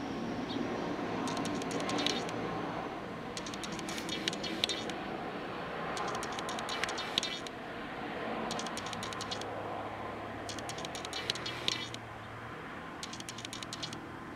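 Makeup sponge dabbed quickly against the skin to blend foundation: short runs of soft tapping clicks, each about a second long, repeating every second or two over a steady low hum.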